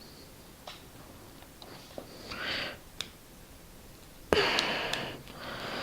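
A few small clicks of metal pistol parts being handled, with heavy breaths and a sudden loud exhale through the nose about four seconds in, as a stiff, chrome-coated part of the slide is worked loose.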